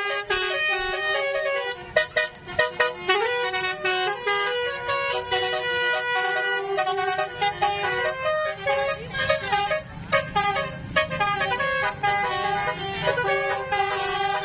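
Basuri telolet horn on a vehicle playing a melody of stepped multi-tone horn notes without a break, with a few sharp clicks about two to three seconds in.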